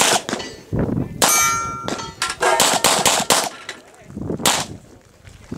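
A string of pistol shots at an uneven pace, several in quick succession, with a last shot about four and a half seconds in. One shot, about a second in, is followed by a ringing metallic clang.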